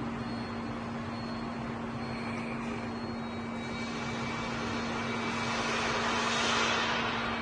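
Steady industrial hum with a rushing hiss that builds over about three seconds and cuts off near the end, plausibly a powered nutrunner on a torque reaction arm running down a bolt on a large flywheel.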